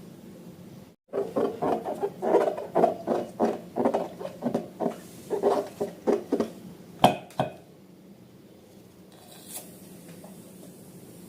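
Slime being handled: a rapid series of uneven pulses, about three a second, with a sharp click near the end of the run, then only faint room noise.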